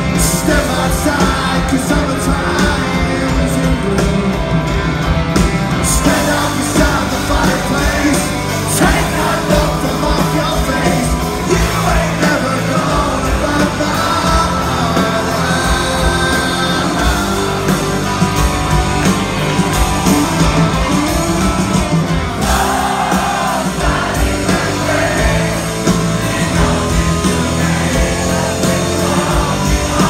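Live rock band playing a song with electric guitar, drums and singing, heard from in the crowd at a rock concert.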